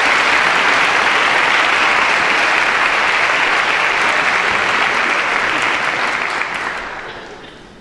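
Concert audience applauding steadily as the piano soloist comes on. The clapping dies away over the last second or two.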